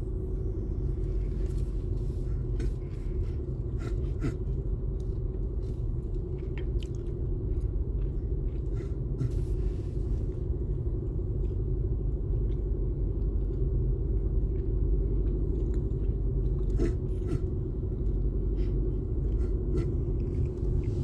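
Steady low road and engine rumble of a vehicle driving, heard from inside the cabin, with scattered light clicks and rattles.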